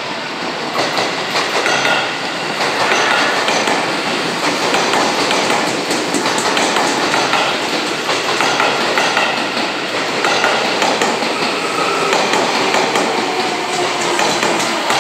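Seibu 20000 series electric train pulling into the platform and slowing, its wheels clicking and clattering over rail joints and points, with a faint whine that falls in pitch near the end.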